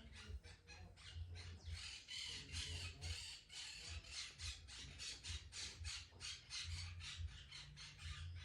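A cat grooming itself, licking its fur with its rough tongue in a quick, even run of rasping licks, about four a second.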